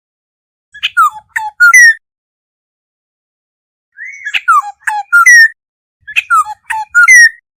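Black-hooded oriole calling: three short phrases of clear whistled notes, about a second in, about four seconds in and about six seconds in. Each phrase is three or four quick notes that slur downward, ending on a higher note.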